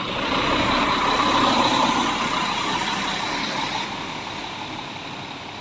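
Triaxle coach passing close and pulling away, its engine and tyre noise loudest at first and fading steadily over the next few seconds.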